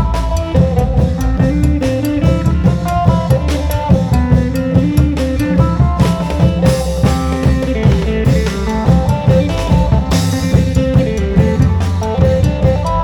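Isan folk music with a plucked phin lute melody over a steady beat of drums and cymbals.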